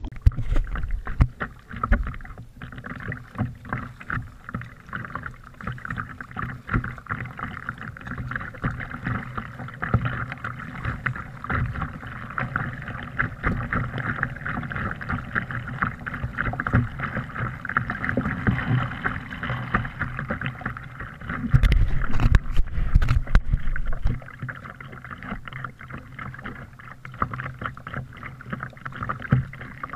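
Double-bladed kayak paddle dipping and splashing in steady strokes, with water slapping against the plastic hull of a sit-on-top kayak. About two-thirds of the way through, a few seconds of louder low rumbling with some sharp knocks break in.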